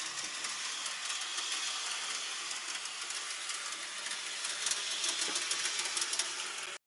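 Model railway train running on the layout's track: a steady whirring rattle of motor and wheels, with a few faint clicks near the end. The sound cuts off suddenly just before the end.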